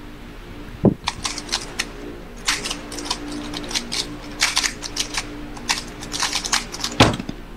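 A 3x3 speedcube being turned very fast through a solve of about six seconds, giving a dense run of quick plastic clicks. There is a thump about a second in as the hands lift off the timer pad, and a louder slap near the end as they hit the pad to stop it.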